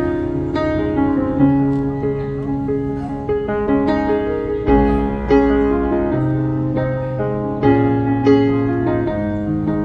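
Background instrumental music led by piano, with sustained notes changing every second or so.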